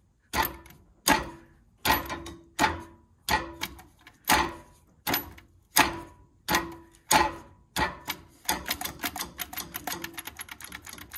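Sharp metallic ratchet clicks as the Mity Kat dozer's drivetrain is turned over by hand, at about three clicks every two seconds. About eight seconds in they change to a rapid run of light clicks.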